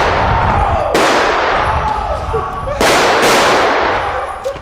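Gunshots: loud bangs about a second in and just under three seconds in, each trailing off in a long noisy wash, the tail of an earlier bang still sounding at the start.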